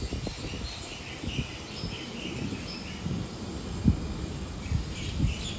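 Birds chirping in short calls over an uneven low rumble, with two short knocks a little before four and five seconds in.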